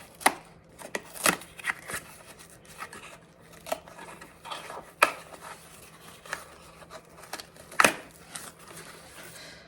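Candle packaging being handled and opened: scattered sharp clicks and knocks with light rustling and scraping, the loudest knocks about a third of a second in, around five seconds in and near the end.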